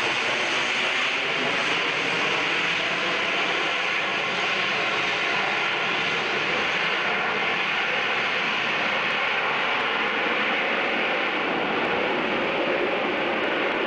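Harrier jump jet's engine running in slow, gear-down flight overhead: a loud, steady rushing jet noise with a strong high hiss, unchanging in level.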